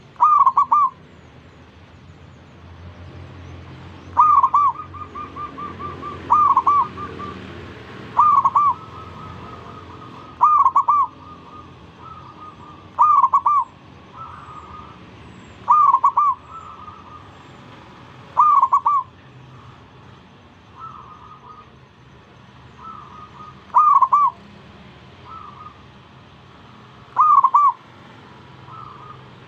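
Zebra dove (perkutut) singing: about ten loud, short phrases of rolling coo notes, a few seconds apart. Fainter coos from other zebra doves answer in between.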